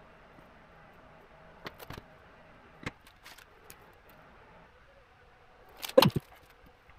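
Small tools being handled on a workbench: a few light clicks about two and three seconds in, then a loud cluster of knocks about six seconds in, as tweezers and a solder-paste syringe are put down and picked up.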